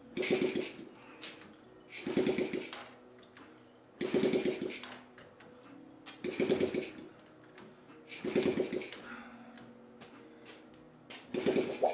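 Honda C70 Super Cub's 70cc four-stroke single being turned over on its kick-start lever, worked by hand. Six short cranking bursts come about two seconds apart, each a brief whirring spin-over that dies away, and the engine does not keep running.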